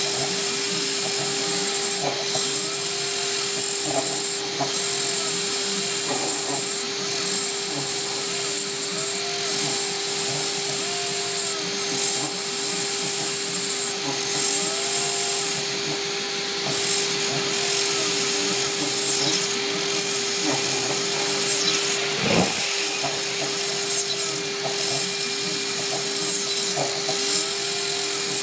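CNC router spindle running and its bit milling out a sprocket: a steady high whine over a constant lower hum, the cutting noise dipping and returning in a regular cycle about every two seconds. A single short knock about 22 seconds in.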